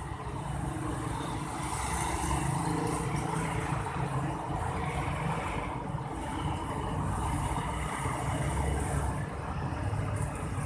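Street traffic: cars and motorcycles driving past, a steady mix of engine rumble and tyre noise that swells and eases as vehicles go by.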